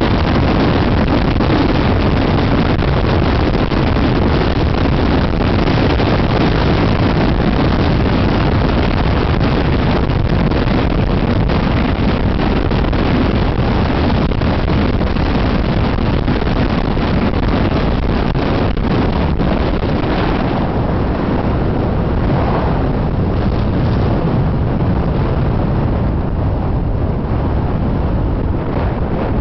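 Wind buffeting the microphone of a moving car, over a steady low rumble of engine and road noise. The hiss eases a little after about twenty seconds.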